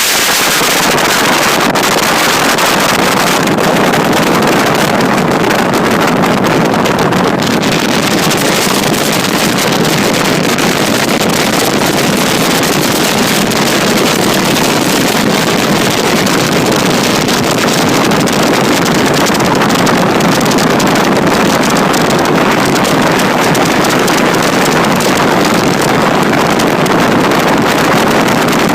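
Steady, loud wind noise on a handheld phone microphone aboard a bass boat running at speed, drowning out the boat itself.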